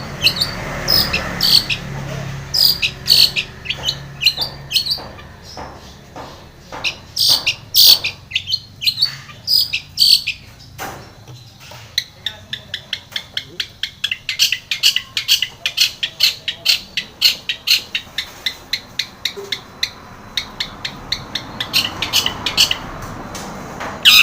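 Long-tailed shrike singing a long run of sharp, high chirps and harsh notes. In the middle of the run they come evenly, about four a second.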